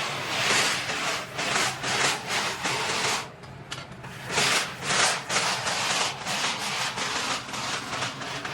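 Repeated short scraping strokes, roughly two or three a second, with a brief pause about three seconds in. A low steady hum runs underneath.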